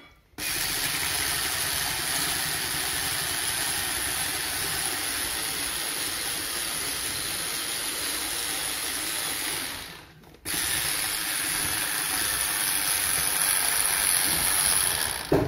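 Electric hand mixer running steadily at speed, its beaters whipping egg whites in a ceramic bowl. The noise breaks off for a moment about ten seconds in, then carries on.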